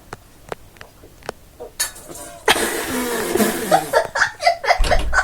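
A few small swallowing clicks, then about two and a half seconds in a loud spluttering cough lasting over a second as someone chokes on a fizzy Eno antacid drink. Choppy laughter follows, with a low thump near the end.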